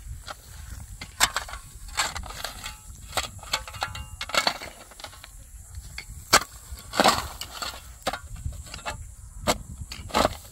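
About ten irregular sharp knocks and cracks over a low background rumble, the sharpest about six seconds in, sounding like wood being knocked or broken.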